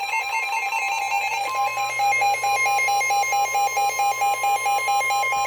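Electronic alert beeping from a weather radio, about four beeps a second. About one and a half seconds in, a steady tone near 1 kHz joins it: the NOAA Weather Radio warning alarm tone that comes before a new warning.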